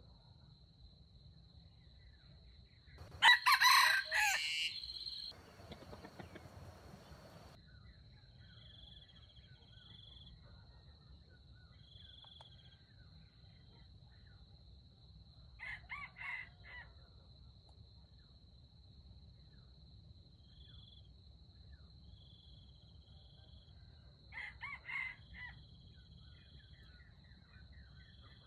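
A red junglefowl rooster crows: one loud crow about three seconds in, then two shorter, fainter crows, one near the middle and one near the end. A steady high insect drone runs underneath.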